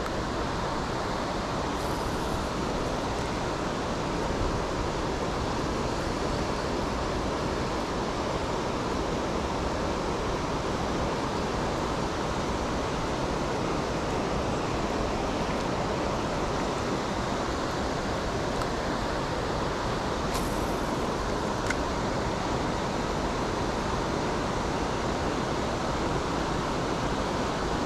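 Steady rush of river water pouring over a weir, an even noise that does not let up.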